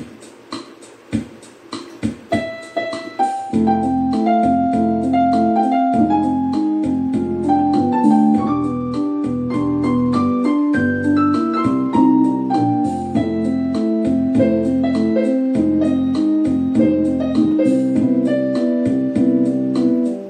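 Electronic keyboard playing in a piano voice. A few separate notes sound at first, then about three and a half seconds in low sustained chords come in under a moving melody line, over a steady, evenly spaced beat.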